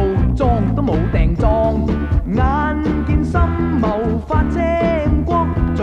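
The series' upbeat Cantonese theme song playing with full band accompaniment, a passage between its sung lines.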